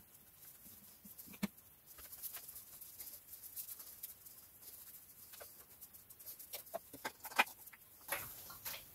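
Engine oil glugging out of a 5-litre bottle into the engine's oil filler: soft, irregular clucks and gurgles with small clicks.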